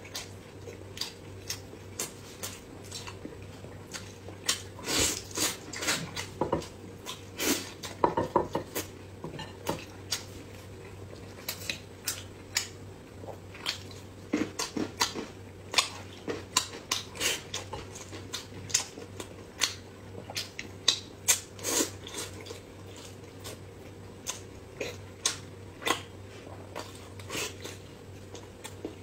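Close-miked eating of soft braised meat: wet chewing and mouth sounds, with chopsticks clicking against the plates. The short clicks come in a steady scatter, busiest in two stretches in the first and middle parts.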